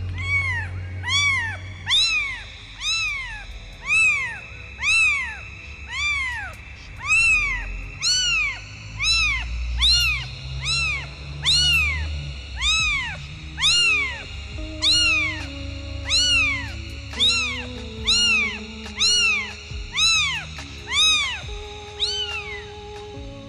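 Kitten meowing over and over: high calls that rise and fall, about one a second, evenly spaced and nearly identical. Quiet background music and a low hum run underneath.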